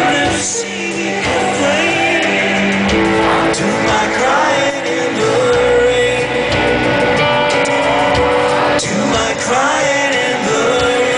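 Live band performance of a pop-rock song: a singing voice with held, gliding notes over guitar and full band.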